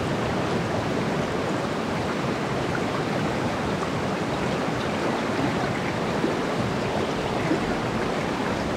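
River water rushing steadily over a shallow, rocky bed: an even, continuous rush of a fast riffle.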